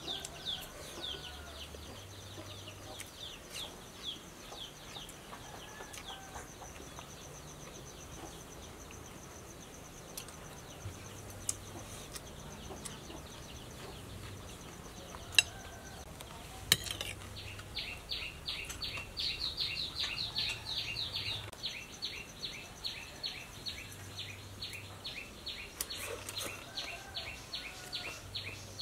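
Quiet outdoor ambience: a steady high insect drone and runs of rapid repeated high chirps, busiest in the second half. A few sharp clinks of a metal spoon or fork against a ceramic bowl stand out, two close together about halfway through.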